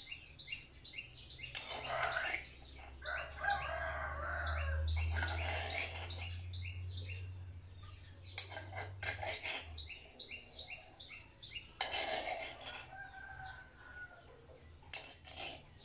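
Birds chirping over and over in quick short notes, with longer calls that sound like a rooster crowing. A low hum swells in the middle and fades out.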